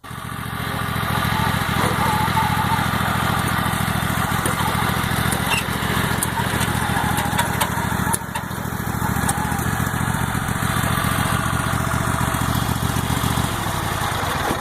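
An engine running steadily, its pitch dropping near the end.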